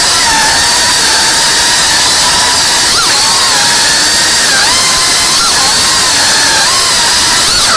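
Brushless motors and ducted propellers of a 3.5-inch cinewhoop FPV drone whining over a loud rushing hiss, heard close from the onboard camera. The whine's pitch dips and climbs back several times as the throttle is changed, most sharply near the end.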